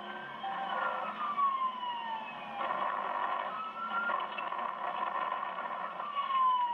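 Police siren wailing in slow sweeps, its pitch rising and falling, over the steady low hum of the patrol car's engine and road noise.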